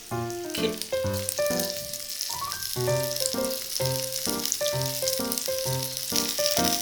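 Gyoza sizzling in hot oil in a takoyaki maker, the hiss growing stronger near the end, under melodic background music.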